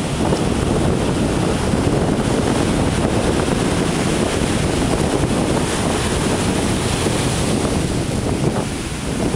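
Ocean surf breaking and washing up the beach, a steady loud rush, with wind buffeting the microphone.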